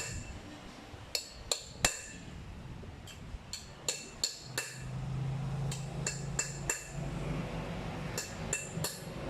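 Irregular sharp metallic clinks, like metal tools or parts knocking together, each with a brief high ring. About halfway through a steady low hum starts and runs on under the clinks.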